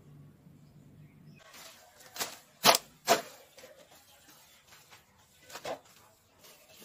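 Weeds and vegetation rustling as they are grabbed and pulled by hand, with a few sharp cracks about two to three seconds in and another smaller one near the end.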